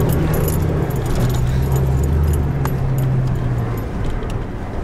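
Inside a car moving slowly over a rough, debris-strewn street: a steady low engine and road hum, with scattered light rattling clicks like keys jangling.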